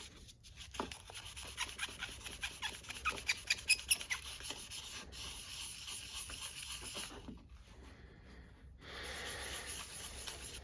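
Sandpaper rubbed by hand over a pocket knife in quick back-and-forth strokes, loudest around the middle, with a short break about three-quarters of the way through before the rubbing starts again.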